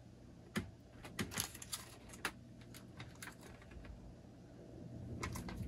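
Scattered light clicks and taps of a spatula and a plastic ricotta tub as ricotta is scooped out and scraped onto calzone filling, over a low steady hum.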